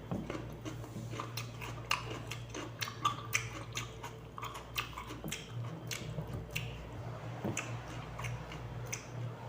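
Raw cucumber being bitten and chewed close to the microphone: many irregular crisp crunches. A low steady hum runs underneath.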